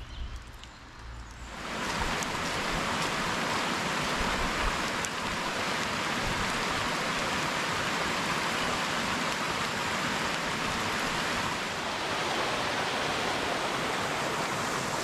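Steady rush of flowing water, beginning abruptly about a second and a half in.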